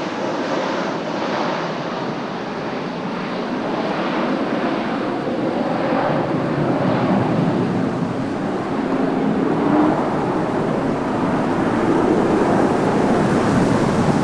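Jet noise of a Boeing 737-800 on final approach with its gear down, its two CFM56-7B turbofans giving a steady rushing rumble as the airliner passes and flies away.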